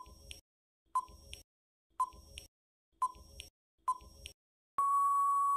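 Quiz countdown timer sound effect: five short beeps about a second apart, each followed by a faint tick, then one longer steady beep near the end marking time up.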